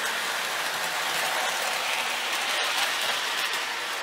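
MTH Rail King die-cast 4-8-4 O-gauge model steam locomotive running around the track: a steady, even rattle of its wheels, motor and gearing on the rails.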